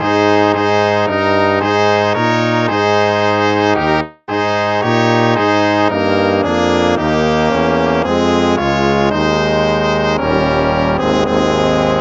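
Instrumental hymn tune played in brass tones like trombone and trumpet, a melody of separate held notes with a brief break about four seconds in, moving into longer held notes near the end.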